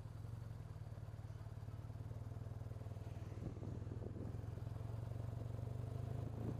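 Motorcycle engine idling with a steady low pulsing, growing a little louder toward the end as the bike pulls away.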